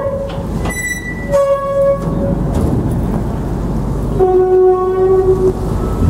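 Low rumble of engines inside a ferry's vehicle deck, with a short high beep about a second in and two held horn tones, the second lower and longer, near the middle and near the end.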